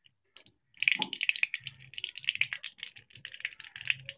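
Cooking oil hitting a hot kadhai crackling and spitting: a dense run of sharp pops that starts about a second in and keeps going.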